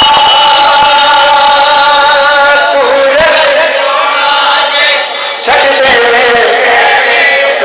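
A close crowd of men chanting together in long, held notes. The chant breaks off briefly about five and a half seconds in, then picks up again.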